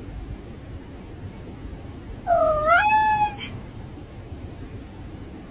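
A cat meowing once, a single drawn-out meow about a second long that dips, rises and then holds its pitch, roughly halfway through.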